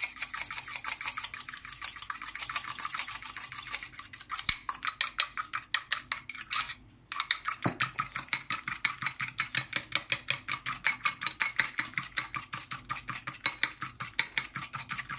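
A metal spoon beating cream with lemon juice in a small ceramic bowl, scraping and clinking against the bowl's sides in a fast, even rhythm of about five strokes a second, with a brief pause about seven seconds in.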